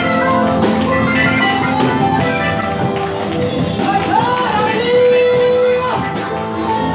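Live gospel praise music: an electronic keyboard with drums and percussion keeping a steady beat, and a singer's voice sliding between held notes.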